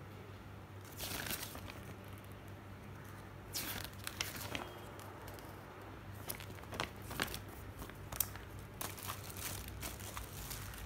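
Paper instruction booklet being handled, its pages rustling and crinkling in several short bursts with small taps and clicks.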